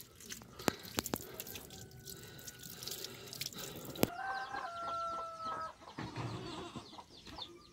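A stream of water splashing over a plucked chicken as it is washed by hand, with a few sharp drips and knocks. About four seconds in, a rooster crows once, one long call of about a second and a half that steps down in pitch partway, amid quick high chirps.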